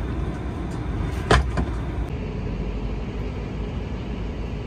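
Steady low rumble of an ATR 72 turboprop airliner, with a sharp click about a second in and a fainter one just after; a steady hum joins about two seconds in.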